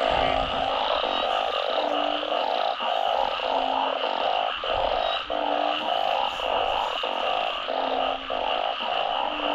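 A dense breeding chorus of frogs calling in a flooded field after heavy rain. Many calls overlap in a steady pulsing, a deeper short call stands out every second or two, and a steady high buzz runs underneath.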